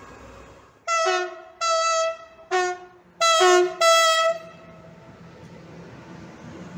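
Two-tone horn of a BB 26000 electric locomotive sounded in a run of five blasts, long and short, over about three seconds. It is followed by the quieter rumble of the freight train rolling past.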